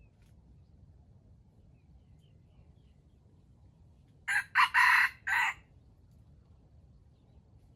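A rooster crows once, about four seconds in: a short, loud, clipped crow in four quick parts.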